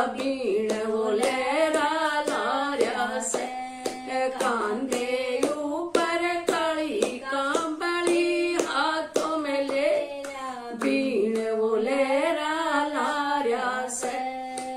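A woman singing a Haryanvi Krishna bhajan unaccompanied, keeping time with steady hand claps.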